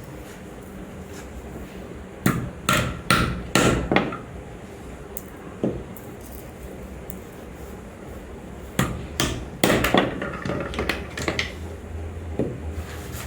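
Hammer knocks: a quick run of about five strikes, a single strike, then another run of strikes, over a low steady hum.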